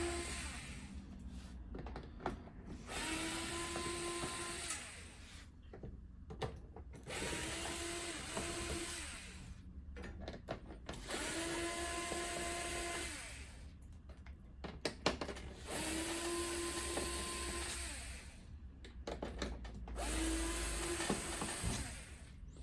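Cordless electric screwdriver backing screws out of the TV's bottom edge: about five short runs of motor whine, each rising as it spins up, with clicks and handling of screws and the screwdriver between runs.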